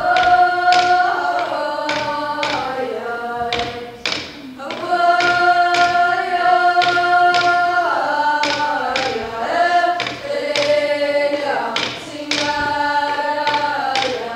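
A woman singing a Greenlandic drum-dance song in long held notes that step between pitches, over steady strokes on a qilaat, the Greenlandic frame drum, struck at its rim with a stick. The song breaks off briefly about four seconds in, then resumes.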